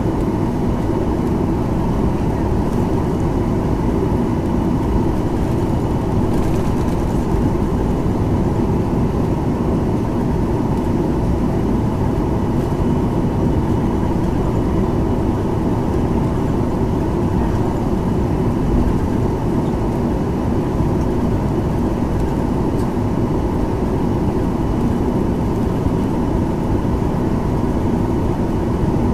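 Steady cabin noise inside a Boeing 737-900ER taxiing, heard over the wing: its CFM56-7B jet engines at taxi power with a low, even rumble.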